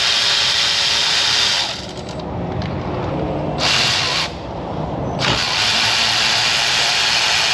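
Handheld power tool for driving fasteners running in bursts while bolts are taken out: it runs, stops about two seconds in, whirs briefly again around the middle, and runs steadily once more from about five seconds in.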